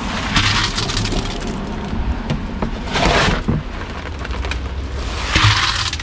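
Shovel scooping wet concrete out of a plastic wheelbarrow tub and dumping it into a cardboard sonotube form, a scraping, sliding noise heard three times, a couple of seconds apart.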